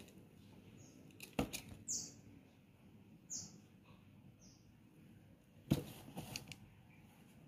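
Handling noise from a sneaker and its tissue-paper packing in a cardboard shoebox: two sharp knocks, one about a second and a half in and one near the end, with light crinkling and a few short high chirps between them.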